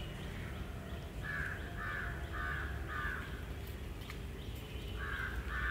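A crow cawing: four harsh caws in quick succession, about half a second apart, starting a second in, then another run of caws starting near the end.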